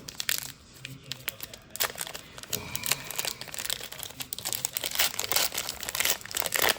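Baseball trading cards being handled and flipped through: card stock rustling and snapping in quick irregular clicks, busier from about halfway in.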